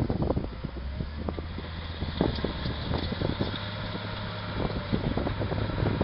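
Diesel engine of a Volvo wheel loader running steadily as it pushes rubble with its bucket, a low hum, with wind buffeting the microphone throughout.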